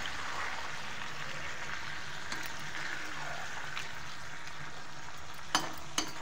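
Chicken curry gravy simmering in a kadhai, a steady sizzling bubble, with a little water just added. A spatula knocks against the pan twice near the end.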